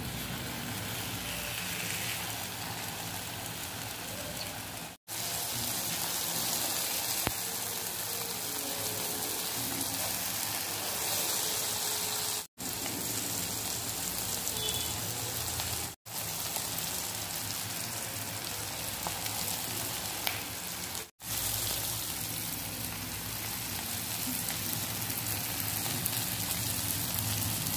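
Eggs and tomato masala frying in oil in a pan: a steady sizzle that breaks off for a moment four times.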